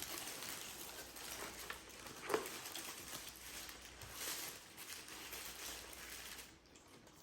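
Rustling and crinkling of fast-food paper wrappers and packaging, with small crackly ticks and one sharper tap a little over two seconds in.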